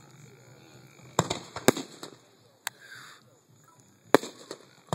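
Aerial fireworks shells bursting: two bangs close together about a second in, a sharper crack in the middle, and the loudest bang near the end.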